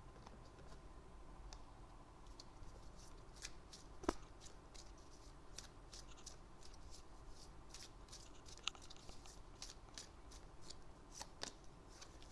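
Faint, scattered soft clicks of a deck of cards being shuffled by hand, with a sharper click about four seconds in.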